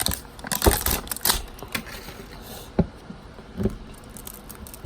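LOL Surprise toy's plastic wrapping being torn and handled, with fingernails on the plastic: a quick run of clicks and crinkles in the first second and a half, then a few scattered taps.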